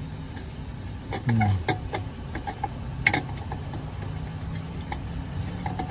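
Small clicks and knocks of a headlight bulb and its wire spring clip being worked into the plastic back of a Honda CR-V headlight housing as the bulb is fitted, with a sharper click about three seconds in, over a steady low hum.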